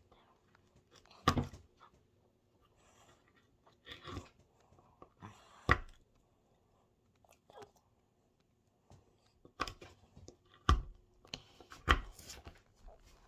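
A digging tool chipping and scraping at a hard dig-kit block: about seven sharp crunchy scrapes and knocks, spread unevenly, with quieter scratching between them.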